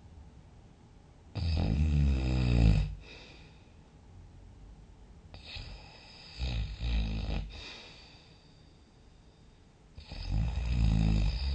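A sleeping person snoring loudly: three snores about four seconds apart, each lasting a second or so, with quiet breathing between them.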